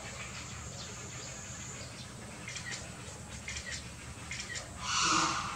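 Short high bird-like chirps scattered over a steady low background hum, then a brief, louder call near the end.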